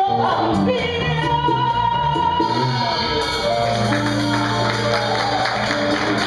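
A woman singing with a live band of electric bass, piano and drums, holding a long note early on.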